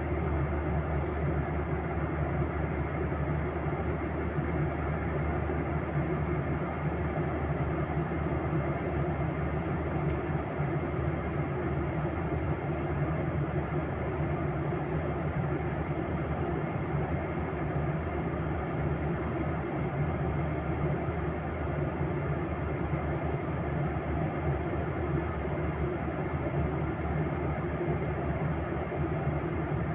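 Steady, low cabin drone of a Boeing 737-800 in flight, its CFM56-7B turbofan engines and the rushing airflow heard from inside the cabin.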